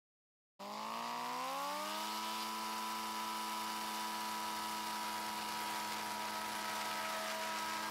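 Kitfox light aircraft's engine and propeller at takeoff power: it cuts in abruptly about half a second in, rises in pitch for about a second and a half as the throttle comes up, then holds a steady note through the ground roll.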